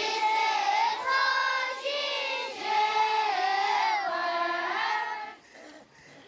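Many children chanting a prayer together in long, held, sung tones over several phrases; the chanting stops about five seconds in.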